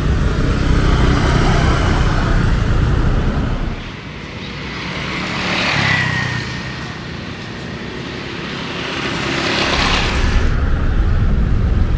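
Street traffic: motor vehicles running along the road, with two passing close by, one swelling and fading about six seconds in and another about ten seconds in.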